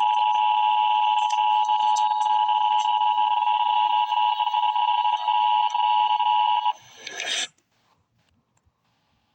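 Emergency Alert System attention signal: the steady two-tone alarm of 853 and 960 Hz played together, announcing the special weather statement that follows. It cuts off about seven seconds in, followed by a short burst of noise and then near silence.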